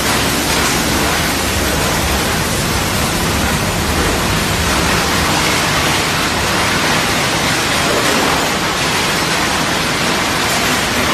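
Quartz sand processing machinery running: a loud, steady, even hiss with a rumble underneath.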